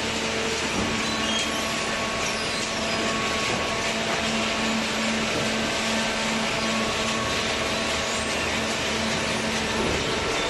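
Vertical hydraulic baler's electric motor and hydraulic pump running steadily, a constant hum with a whining tone over a broad hiss.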